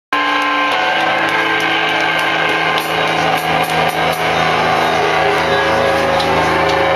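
Garage rock band playing live, loud: distorted electric guitar holding long sustained notes that change pitch a few times, with a few scattered drum and cymbal hits.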